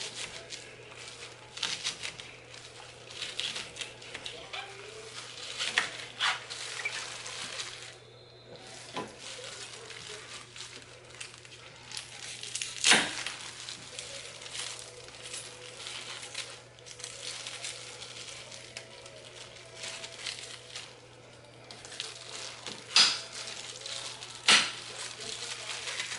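Kitchen prep with a knife on a cutting board and vegetables going into a roasting dish: irregular knocks and clicks, with a few sharp clacks about halfway and twice near the end, over a steady low hum.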